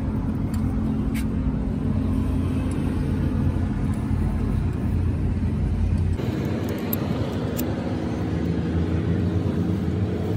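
An engine running steadily with a deep hum; about six seconds in the sound changes, the lowest hum dropping away and a higher, rougher note coming up.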